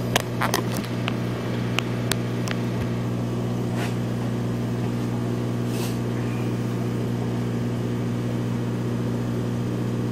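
Aquarium air pump running with a steady electric hum, with a few sharp clicks and knocks in the first couple of seconds and a brief hiss about six seconds in.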